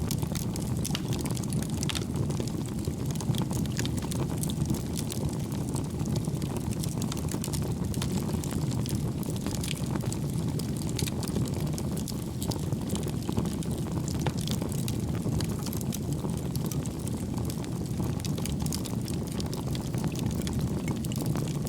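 Bonfire burning: a steady low rush of flame with many scattered sharp crackles and pops of burning wood.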